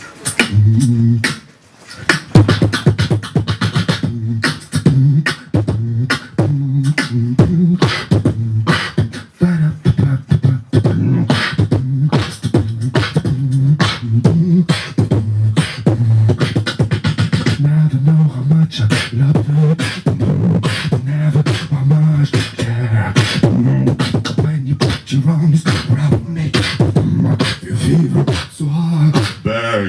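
Human beatbox through a handheld microphone: fast mouth-made kick, snare and hi-hat clicks over a hummed bass line that steps between low notes. After a short pause, it kicks in about two seconds in.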